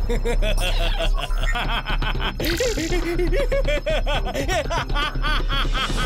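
A man's long, rapid cackling laugh, a cartoon villain's gloating evil laugh, over background music.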